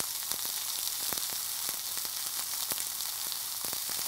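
Barbecue-glazed beef short rib sizzling on a hot grill grate: a steady hiss with frequent sharp crackles and pops.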